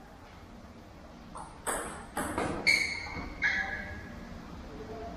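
Table tennis ball being served and rallied: a handful of sharp pings of the celluloid ball off the bats and the table, starting about a second and a half in and spaced about half a second apart, the later bounces ringing briefly.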